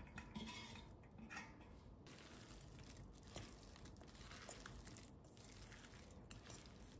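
Faint mixing in a stainless steel bowl: soya chunks stirred into spiced yogurt and green peas with a silicone spatula, with a few light taps against the bowl.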